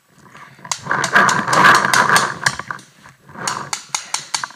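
Rustling and crunching of dry leaves, twigs and brush as a paintball player pushes through woodland undergrowth, in two long swells with scattered snaps and steps.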